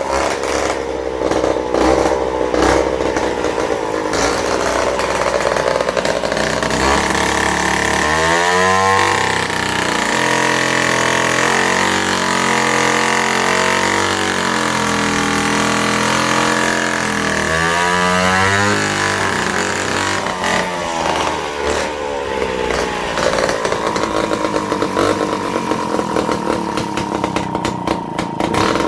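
Vintage Danarm Tornado chainsaw's Villiers two-stroke engine running. About eight seconds in it revs up sharply, holds at high revs for about ten seconds, then drops back and runs on at lower revs.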